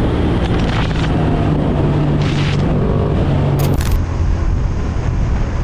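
Motorcycle engine running steadily while riding, with wind noise on the helmet-camera microphone.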